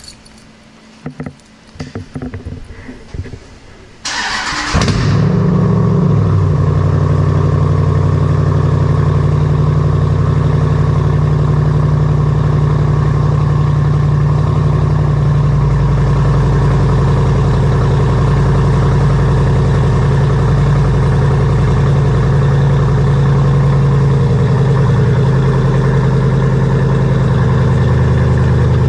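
Cold start of a Jeep Grand Cherokee SRT's V8 with a Borla exhaust: about four seconds in the starter cranks briefly, the engine catches with a short flare of revs, then settles into a loud, steady idle.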